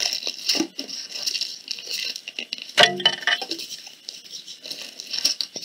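Aluminum foil crinkling and crackling as it is twisted and rolled tightly around a wooden spoon handle, in irregular bursts of small crackles, with a louder crunch about three seconds in.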